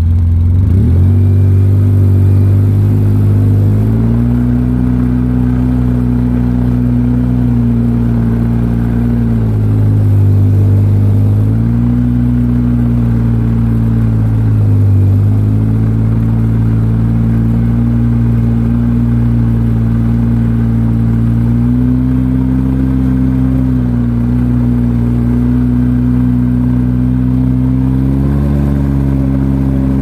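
An engine runs steadily under load, towing a wakeboard rider through snow on a rope. Its pitch dips and rises a few times.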